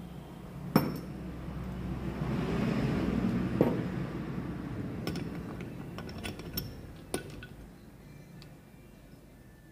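Metal engine parts clinking and knocking together: a handful of sharp, separate clinks as gearbox parts are handled and fitted into a motorcycle crankcase. A background rumble rises and fades in the first half.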